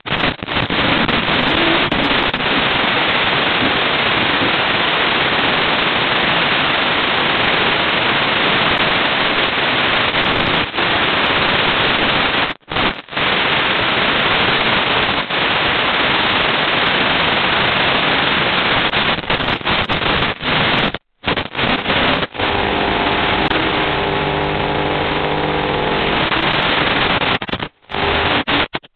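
Steady radio static hiss on the audio of an FPV drone's video feed. It cuts out for a moment several times, and a faint hum of several steady pitches sits under it for a few seconds near the end.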